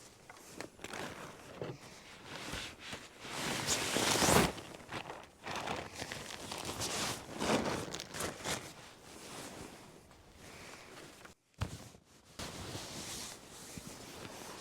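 Irregular rustling and crinkling handling noises close to the microphone, loudest about four seconds in, with a brief drop-out near the end.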